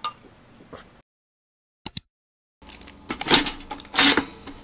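A metal spoon clinks against a ceramic bowl, then a short silence. A pop-up toaster's lever is pushed down with two loud mechanical clunks.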